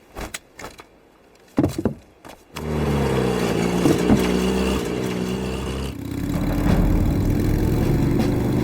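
A motor vehicle's engine comes in loud and sudden about two and a half seconds in and runs steadily, its note changing about six seconds in. A few brief knocks come before it.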